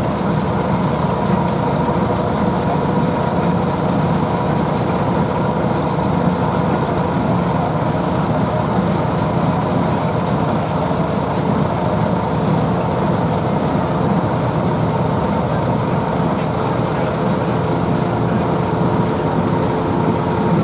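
Vintage belt-driven threshing machine running steadily as sheaves are fed in, with the tractor engine driving it through a long flat belt. A constant, even machine hum with a few steady held tones throughout.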